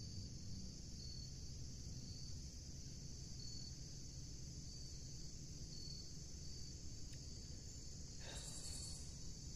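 Insects, crickets among them, chirping in a continuous high trill, with a short regular chirp about once a second. A brief rustle comes near the end.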